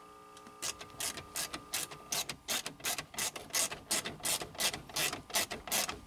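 A 1/4-inch drive ratchet with a 7mm socket clicking in a quick, even rhythm of about four clicks a second, starting about half a second in. It is driving small screws into pot-metal inserts and snugging them up.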